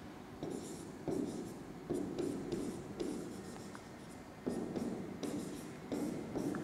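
Handwriting strokes on a writing surface: a run of short scratching strokes, each starting abruptly, about one a second.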